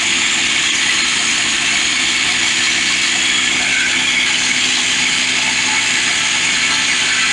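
Woodland Mills portable band sawmill running steadily, its gas engine under load as the band blade slowly cuts through a large pine log. The sound is an even, unbroken noise.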